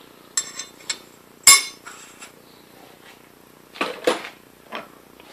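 Steel parts and tools being handled and set against a lathe's milling-attachment vise and chuck: a few scattered metallic clinks and knocks. The loudest is a sharp, ringing knock about one and a half seconds in, with another quick pair of knocks near four seconds in.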